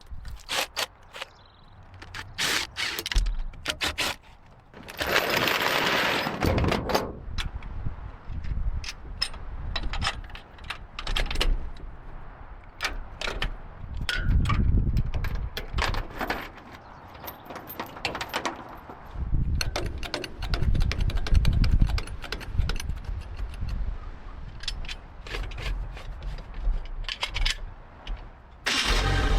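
Metal tools and engine parts clicking, clinking and scraping during hands-on engine work, with a hiss lasting about a second and a half around five seconds in.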